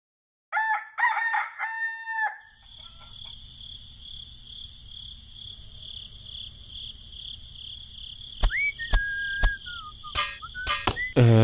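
Rooster crowing once, for about two seconds starting half a second in, followed by a steady high-pitched insect drone with a few sharp clicks and a short whistle-like call near the end.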